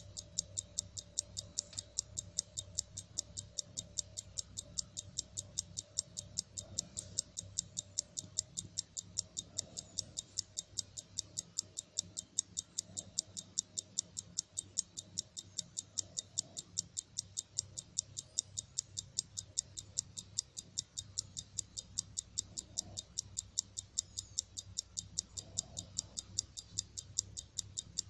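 Vintage Ricoh 21-jewel Automatic 909 mechanical wristwatch ticking close to the microphone: a fast, perfectly even train of sharp ticks, several a second, from its running movement.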